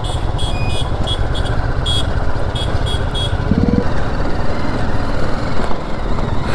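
BMW G 310 GS single-cylinder engine running at low speed as the bike rides over a rough dirt track, under a heavy, steady rumble of wind and jolting on the camera's microphone.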